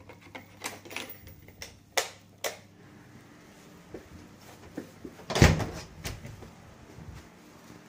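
Wooden interior door with a metal lever handle being worked: light clicks and knocks of the handle and latch in the first couple of seconds, then a heavy thud about five and a half seconds in as the door shuts, and a smaller knock just after.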